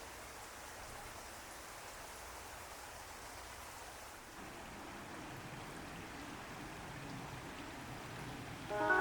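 Steady soft outdoor hiss, with no distinct events. A violin melody comes in near the end.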